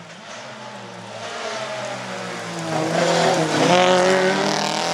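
Ford Escort Mk2 rally car engine heard from inside the cabin, running quietly at first, then pulling hard and louder from about three seconds in, with a brief drop in pitch partway through before it climbs again.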